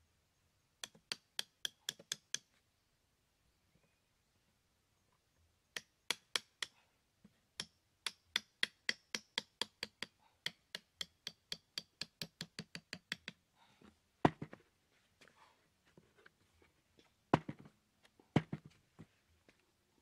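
Small hammer tapping a nail through a cardboard box panel to punch holes: quick, sharp metal taps in runs, at times about three a second, with a few louder knocks near the end.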